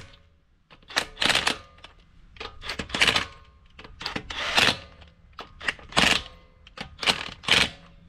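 Lug nuts being run onto a truck's wheel studs: about ten short, sharp clattering bursts of metal on metal, irregularly spaced.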